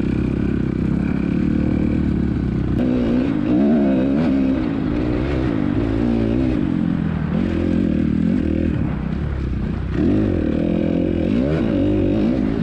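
A small engine running, its revs rising and falling unevenly.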